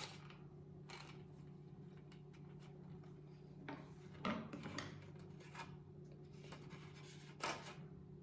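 Faint handling of the small parts of a candy-making kit: light rubbing and a few soft clicks as a fishing-rod piece is worked into notches on the mould, over a low steady hum.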